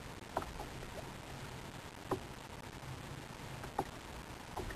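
A few faint, short taps, four in about five seconds, over a low steady wash of wind and sea around a kayak.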